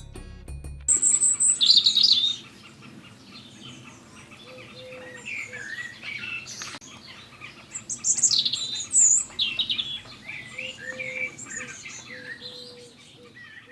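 Birds chirping and singing, many short calls overlapping, loudest in bursts about a second in and again around eight seconds. Closing music fades out in the first second.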